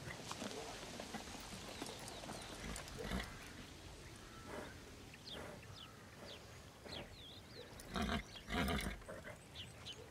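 A horse snorting, two short loud blows through the nostrils about eight seconds in.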